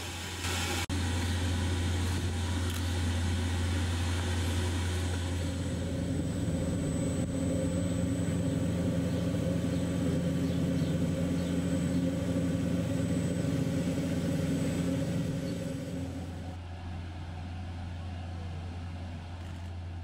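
Steady low industrial hum of gas-plant machinery, with a few steady tones over a deep drone. It is louder for most of the time and drops away about sixteen seconds in.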